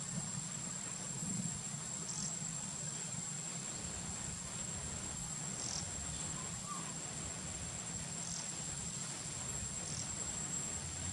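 Insects in a steady, high-pitched drone, with a low steady hum beneath and a few faint short chirps scattered through.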